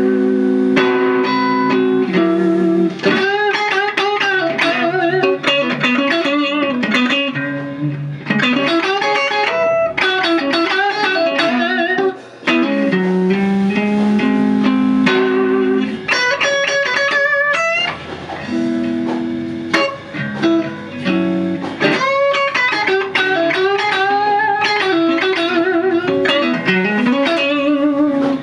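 Electric guitar, a '62 reissue Fender Stratocaster through a TS-808 Tube Screamer into a Fender Pro Reverb amp, played solo. Held chords alternate with fast single-note runs and string bends.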